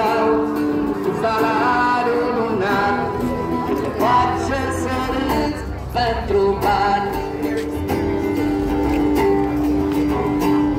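Acoustic-electric guitar strummed and picked, played through a small amplifier, carrying the song without words.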